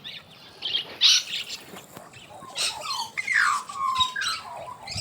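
Birds calling: a few short high calls about a second in, then a run of calls that slide down in pitch.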